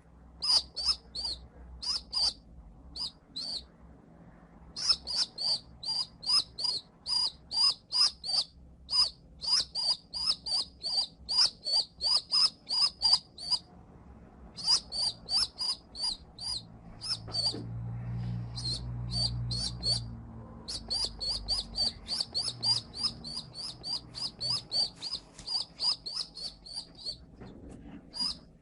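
Baby pigeon (squab) peeping: a rapid run of short, high cheeps, about three a second, broken by a few brief pauses. A low rumble sits under the cheeps for a few seconds past the middle.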